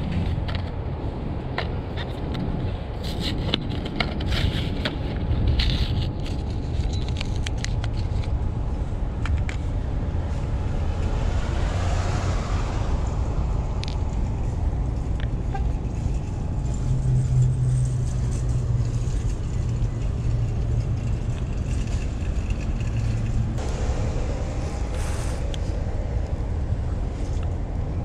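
Wind rumbling on the microphone, with a plastic blister pack and small bulbs handled: a run of clicks and crackles early on. A car passes near the middle, its sound swelling and fading.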